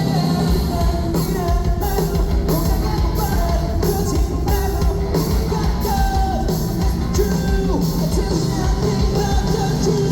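Live rock band playing with a singer's voice over it: drums keep a steady beat with regular cymbal hits under the band.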